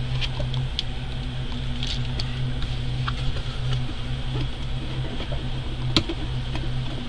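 Light clicks and taps of plastic pens being set into a plastic tray insert and a cardboard box lid being closed, with one sharper knock near the end, over a steady low hum.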